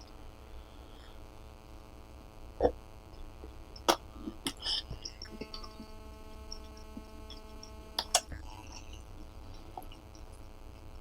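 Eating sounds over a steady electrical hum: a low thump about two and a half seconds in, then a few sharp mouth or utensil clicks around four seconds and again around eight seconds.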